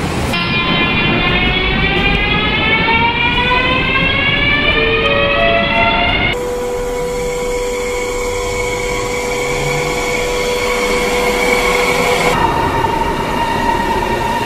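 CRH380 high-speed electric train's traction motors whining as it pulls away from a station platform, several tones rising steadily in pitch for about six seconds. After an abrupt change, another CRH380 train runs with a steady hum and whine.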